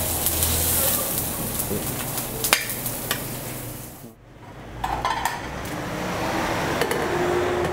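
Octopus sizzling on a hot ridged grill pan, with sharp clicks of metal tongs against the pan and plate. The sound drops away briefly about four seconds in, then kitchen clatter and sizzling resume.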